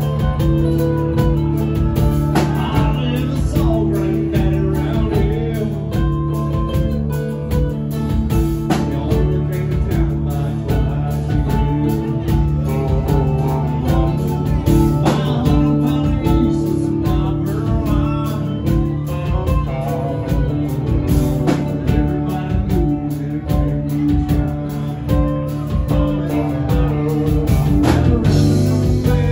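Live country-rock band playing: mandolin and electric guitar over a full drum kit, with a male singer's vocals.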